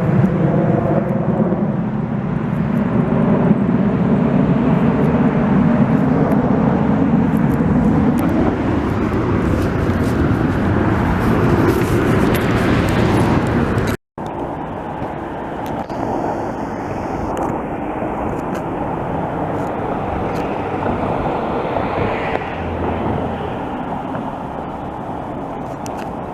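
Loud jet aircraft engine noise passing overhead, a dense roar with a few falling tones at first that swells to a peak just before a sudden cut about 14 seconds in; after the cut a steady, slightly quieter roar continues.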